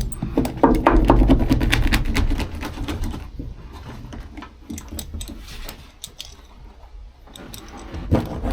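Handling noise: a run of light clicks and knocks as tools and material are moved about on a work surface, busiest in the first three seconds, then sparser and quieter.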